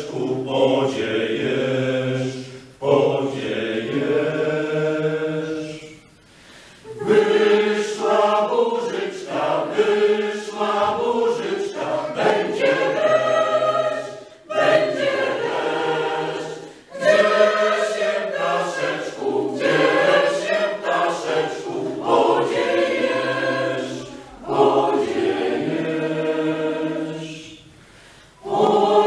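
Mixed choir singing a Polish folk song a cappella, in sung phrases separated by short breaks.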